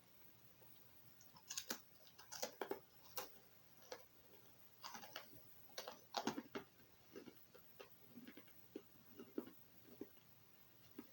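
A hard pretzel rod being bitten and chewed: irregular crisp cracks and crunches, loudest around two and six seconds in, thinning out toward the end.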